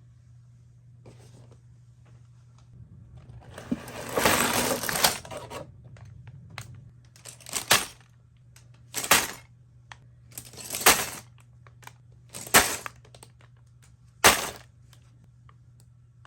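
A LEGO set being opened: plastic rustling and small plastic bricks rattling, a longer burst about four seconds in, then five short bursts about a second and a half apart, over a low steady hum.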